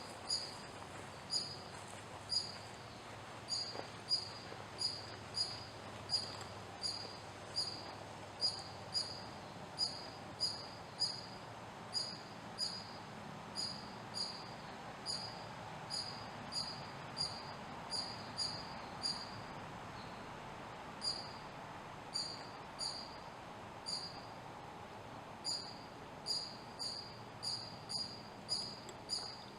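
High, short chirps repeated over and over, about one to two a second, with a brief pause about two-thirds of the way through, over a steady low hiss.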